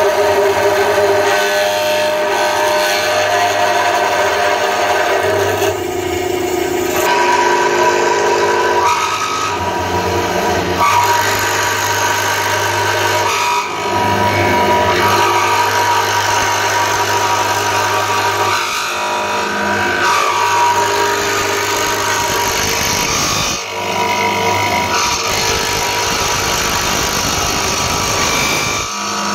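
Wood drilling machine's 2 hp three-phase electric motor running with a steady hum while its spinning bit bores a long slot in a block of hardwood. The table slides back and forth on its bearings, and the cutting sound changes every few seconds with each pass.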